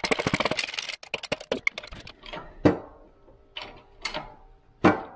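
Rapid metallic clicking for about two seconds, then four separate sharp metal clicks and knocks, as a Subaru transmission shaft is pressed into its rear bearing on a shop press.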